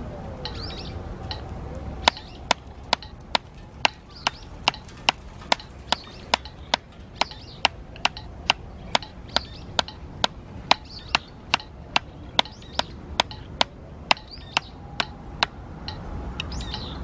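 Drumsticks striking a drum practice pad in a steady, even rhythm, a little over two strokes a second. The strokes start about two seconds in and stop shortly before the end.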